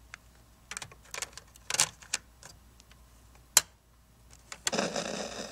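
Piano-key buttons and mechanism of a National portable cassette recorder clicking, a dozen or so irregular sharp clicks with one especially sharp clack past the middle. From about five seconds in, a steady hiss with a faint hum sets in.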